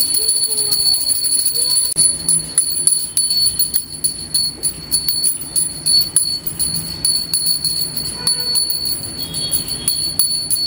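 Small brass puja hand bell rung continuously at a home shrine for an offering to the gods: a high, steady ring with quick, uneven clapper strikes.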